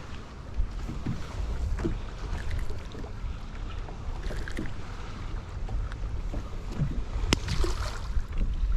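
Ambience on a small fishing boat: low rumbling wind on the microphone with small knocks, and one sharp click about seven seconds in.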